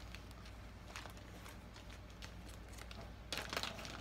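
Faint crinkling of plastic being handled, with a louder cluster of crinkles a little over three seconds in.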